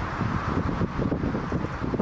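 Boeing 747's four jet engines at takeoff thrust as the airliner rotates and lifts off: a low, rough rumble, with wind buffeting the microphone.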